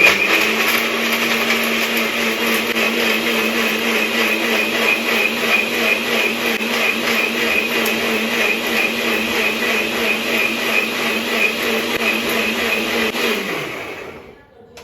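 Electric mixer grinder running at full speed, grinding onion, tomato and spices with a little water into a paste. It switches on suddenly at the start and runs steadily, then winds down near the end, its motor pitch dropping as it stops.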